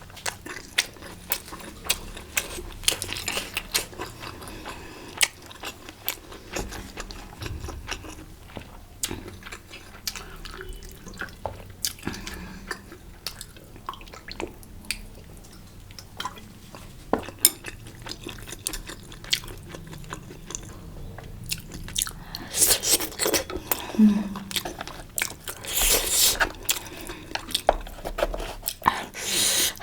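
Close-miked eating: chewing and biting, with frequent small clicks of utensils against a bowl. The eating sounds grow louder and noisier in the last several seconds.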